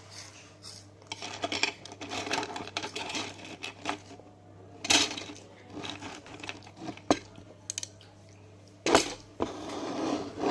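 Spoons clinking and scraping against bowls of Chiki Ball snacks, with a run of sharp clinks, the loudest about five and nine seconds in.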